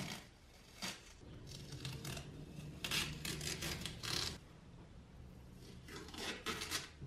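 Masking tape being peeled off a hatchet head's steel blade by gloved hands, in a series of short pulls. The busiest stretch is in the middle, and two more pulls come near the end.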